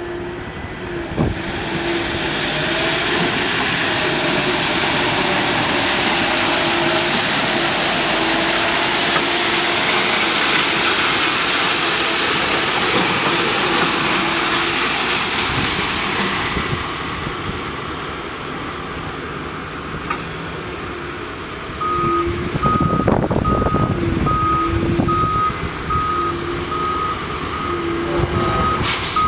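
Ballast regulator working the track: its engine running and its spinning broom sweeping ballast rock, a loud rushing hiss that dies away about 17 seconds in. A back-up alarm beeps steadily, with a higher beep added from about 22 seconds in as the machine's engine revs up to travel.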